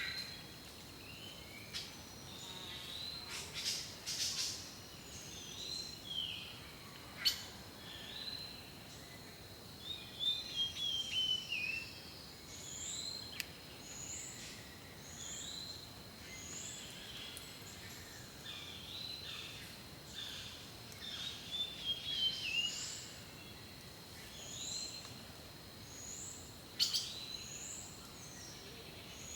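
Several wild songbirds calling and singing: short chirps repeated every second or so, with a quick falling trill a third of the way in and again about three quarters of the way in, over a faint steady high-pitched tone.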